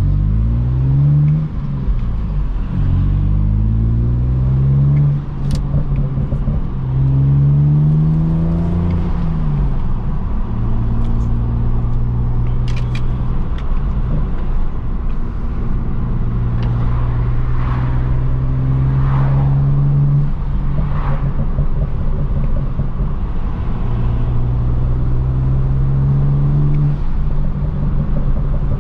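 BMW N54 3.0-litre twin-turbo straight-six accelerating through the gears from a stop, its pitch rising three times with drops at the shifts, then settling into a steady cruise. The owner believes the engine is down on boost from a vacuum leak.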